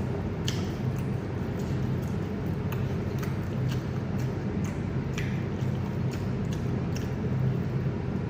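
Eating sounds: irregular short wet clicks and smacks of chewing, over a steady low hum.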